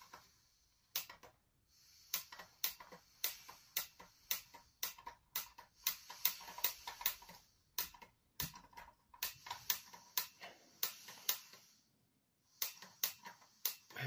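A rapid, uneven series of sharp clicks, a few each second, broken by short pauses about a second in and near the end.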